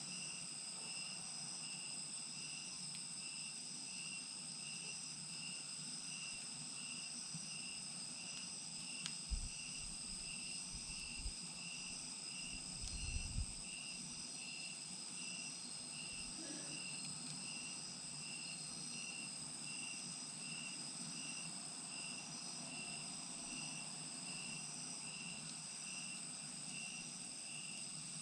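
Crickets and other insects chirping: a steady high trill with an evenly pulsing chirp about once every three-quarters of a second. A few soft low bumps come around the middle.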